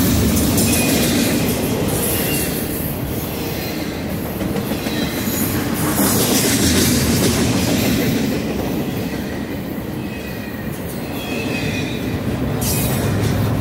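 Double-stack intermodal freight train rolling past on its well cars: a steady rumble of wheels on rail, with a few brief, faint high wheel squeals now and then.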